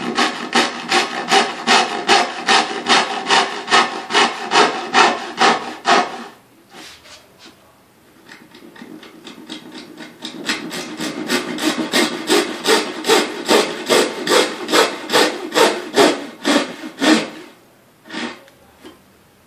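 Handsaw cutting dovetail pins in a wooden board, in steady rhythmic strokes about three a second. One cut ends about six seconds in. The next starts with light, quiet strokes and builds to full strokes before stopping near the end, and a couple of soft strokes follow.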